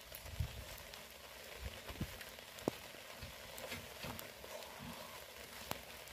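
Steady patter of light rain, with a few sharp clicks and knocks and low bumps from hands on the metal bars of a pen as someone climbs over.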